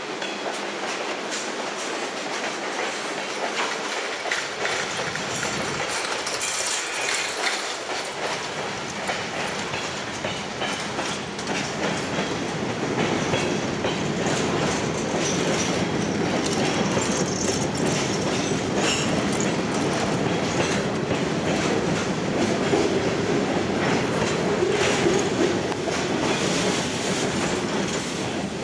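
Freight train rolling past with wheels clicking over the rail joints and cars rattling. A diesel locomotive rumble builds from about halfway through as the locomotives come by.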